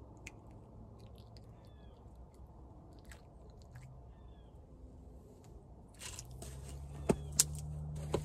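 Small crackling, clicking handling noises as a fishing hook is worked free from a mudpuppy's mouth, with a few sharp clicks near the end. About six seconds in, a low steady hum comes up underneath.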